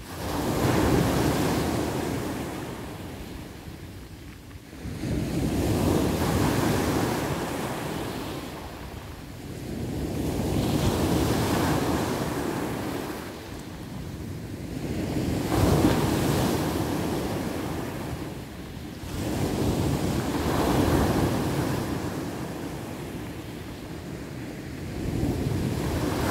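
Ocean surf breaking on a sandy beach, each wave rushing in and washing back, swelling and fading about every five seconds.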